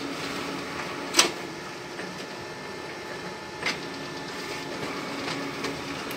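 Ricoh Aficio MP 5002 office copier running with a steady mechanical hum, and a few sharp clicks, the loudest about a second in.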